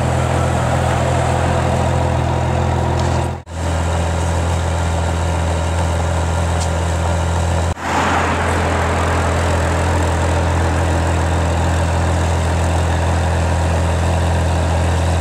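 Ferrari 599 GTO's V12 idling steadily, heard close up at its twin exhaust tailpipes. The steady note is broken twice by brief cuts in the recording.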